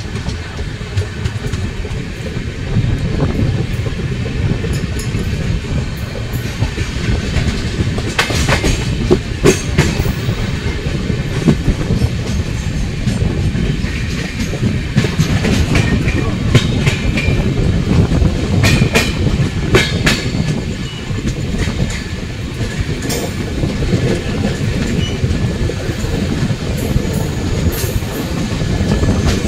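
Coalfield Express passenger train running on the line, heard from on board: a steady low rumble of the coaches with sharp clacks of the wheels over rail joints coming in clusters now and then.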